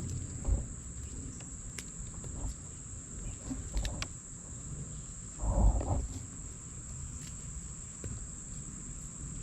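Crickets keep up a steady high-pitched trill, with a few soft rustles and knocks of hands digging in a bucket of potting soil; the loudest knock comes a little after halfway.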